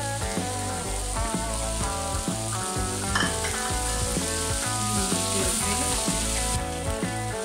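Diced vegetables sizzling as they are stir-fried in a wok with a wooden spatula. Background music with a stepping bass line plays throughout.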